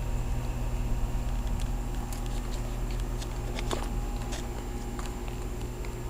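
2008 Carrier Performance Series heat pump condensing unit running in cooling mode: a steady, very quiet low hum from the compressor and condenser fan, with scattered light clicks over it.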